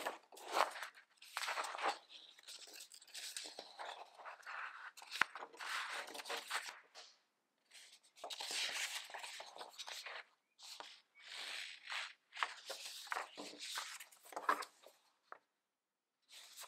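Paper pages of a printed booklet being flipped through by hand: a run of rustles and crinkles with short pauses between turns.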